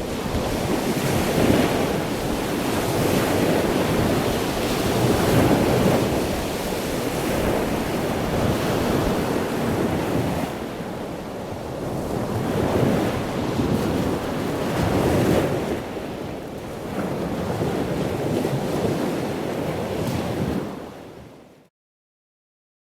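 Ocean waves surging and washing in continuously, rising and falling every few seconds. The sound fades out to silence near the end.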